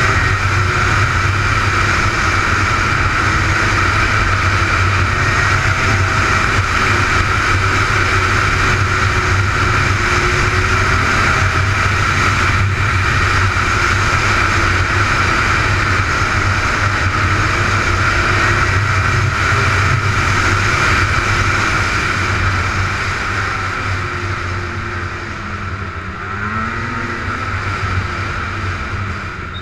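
Snowmobile running at speed along a packed snow trail: a steady engine drone with a constant higher whine over it. The engine pitch wavers a little, and the sound eases off over the last several seconds.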